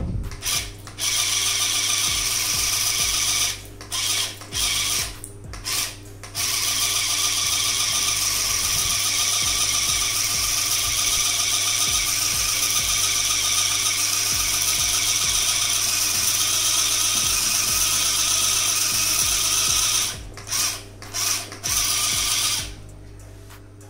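Small electric motor of a toy RC fire engine's water-spray pump module running, pumping water out through the spray tube. It starts and stops a few times in the first six seconds, runs steadily for about fourteen seconds, then cuts in and out again and stops near the end.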